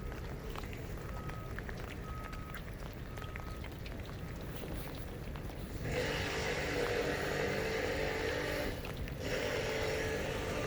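Outdoor ambience in wet weather: a steady low rumble, with a few faint short beeps in the first few seconds. From about six seconds in, a louder stretch of hiss sets in.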